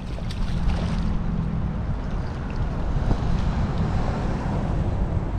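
Wind buffeting the microphone outdoors: a steady, uneven low rumble, with a few faint ticks.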